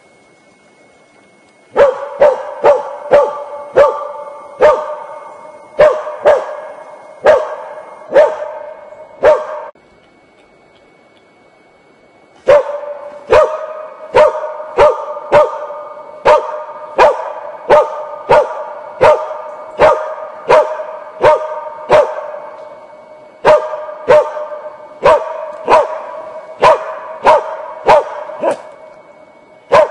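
A dog barking over and over, about two barks a second, in three long bouts broken by short pauses about a third of the way in and again about three-quarters through.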